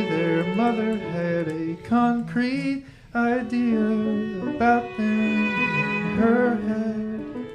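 Chamber ensemble playing: bowed violin, viola and cello over steady held drone tones, with a voice singing wavering notes, and a brief break about three seconds in.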